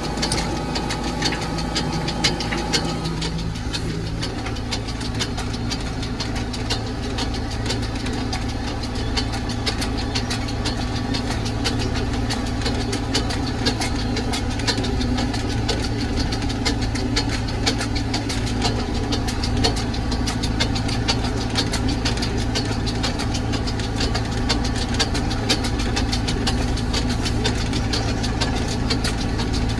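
Farm tractor's diesel engine running under way, heard from inside the cab, with steady fast rattling and clatter. About three seconds in the engine note changes and settles lower.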